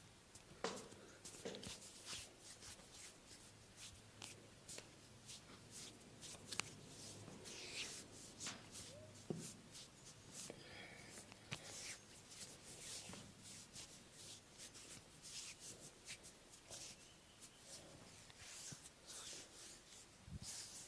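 Faint sound of hands massaging bare skin: rubbing and pressing strokes with soft scuffs and scattered pats and clicks, a few sharper ticks standing out.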